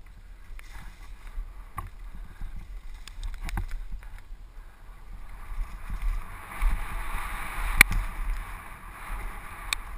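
Downhill mountain bike running fast down a dirt trail: wind buffeting the microphone, tyres rumbling and hissing over the ground, and the bike rattling and knocking over bumps. The hiss swells in the second half, with a sharp knock near the end.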